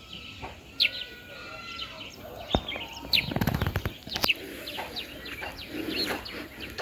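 Birds chirping in short, quick calls, with a rapid run of clicks about three seconds in.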